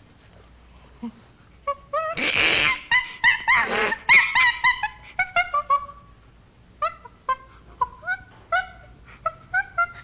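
Common chimpanzee calls: a quick run of short, pitched calls that swoop up and down, with a harsh, noisy call about two seconds in. After about seven seconds the calls come more spaced out.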